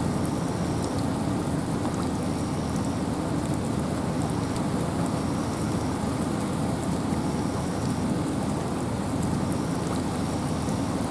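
Steady wind and rain in a forest: an even, low rushing with a fine patter of raindrops.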